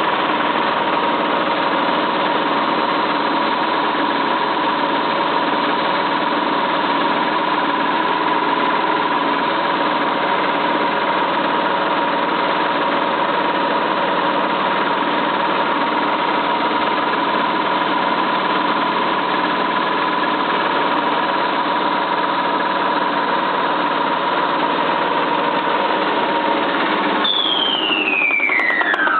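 Cylinda 12002 washing machine spinning fast with a steady whine and a loud noise, as if something were stuck inside the drum, though the inspection pocket held nothing. Near the end the whine falls sharply in pitch as the spin slows.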